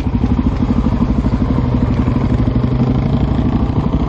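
Suzuki DR-Z400SM's single-cylinder four-stroke engine running steadily at low revs while the bike rolls slowly along a dirt road.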